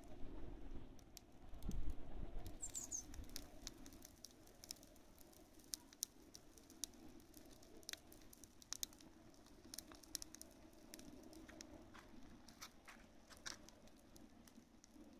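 Dry hay burning, crackling with scattered sharp pops and snaps. A low rumble about two seconds in is the loudest moment.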